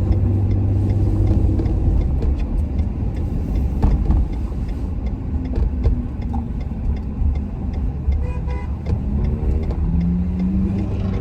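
Steady low road and engine rumble inside the cab of a Ford pickup truck driving along.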